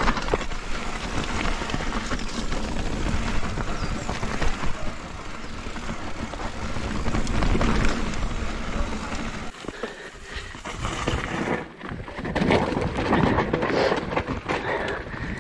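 Mountain bike riding down a muddy, rooty trail, heard through a GoPro on the rider: a steady rush of tyre and wind noise with frequent knocks and rattles as the bike goes over roots. It eases briefly about ten seconds in and again near twelve seconds.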